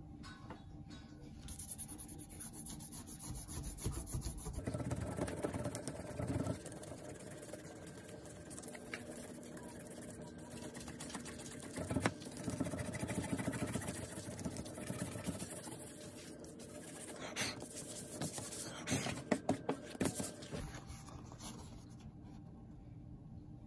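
Fingers rubbing dried masking fluid off watercolour paper: an uneven dry scuffing with paper handling, and a few sharp clicks near the end.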